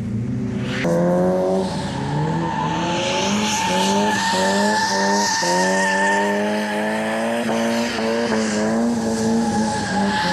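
Car drifting, heard from inside the cabin: the tyres squeal steadily while the engine revs climb and drop back again and again.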